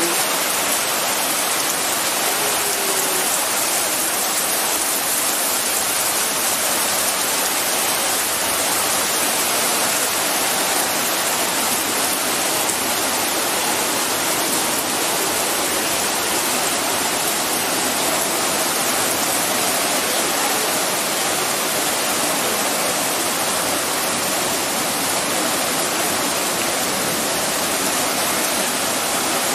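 Heavy rain pouring down in a steady, unbroken hiss, hard enough to flood the street.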